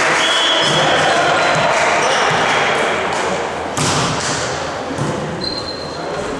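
Indistinct voices chattering in a volleyball gym, with a volleyball thumping on the floor about four seconds in.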